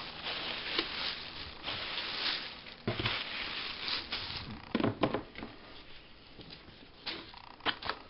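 Plastic packing material and cardboard box flaps rustling and crinkling as they are pulled aside by hand, busiest in the first few seconds, with a few knocks around three and five seconds in.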